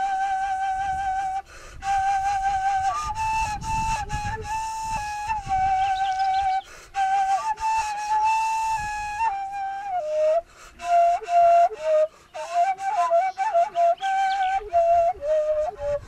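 Background music: a solo flute-like woodwind playing a slow melody of long held notes, turning to quicker, lower ornamented notes in the second half. It stops abruptly at the very end.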